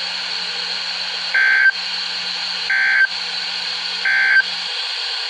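A NOAA Weather Radio broadcast over a weather radio's speaker plays three short electronic data bursts, evenly spaced about a second and a half apart, over steady static hiss and a low hum. These are the SAME digital end-of-message bursts that close an emergency alert message.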